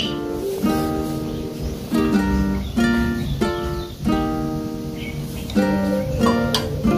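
Background music: a plucked string instrument picking out notes and chords at a steady, easy pace.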